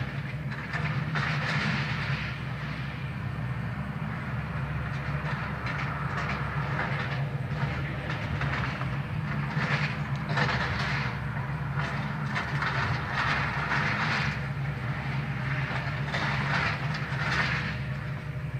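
Hydraulic excavator demolishing a building: its diesel engine holds a steady low hum while wood and debris crunch and clatter in irregular bursts.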